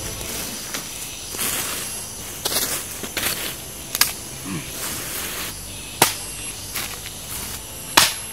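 Dry bamboo leaves and twigs rustling as they are cleared by hand from the forest floor, with sharp cracks every second or two; the loudest crack comes about eight seconds in. A steady high insect drone sounds behind it.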